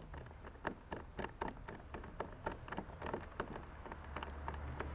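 A rapid, irregular run of small clicks and taps, about five a second, from handling the kayak seat's mounting bolts and fittings.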